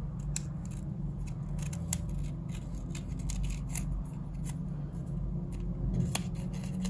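Scissors cutting through folded paper in a run of short, irregular snips, over a low steady hum.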